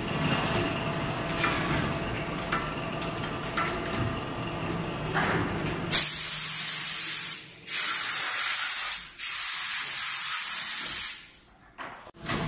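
Multi-station rotary hydraulic press for brake pads running with a steady hum and a few clicks. About halfway through, a loud air hiss from the press starts suddenly, lasts about five seconds with two brief dips, and cuts off.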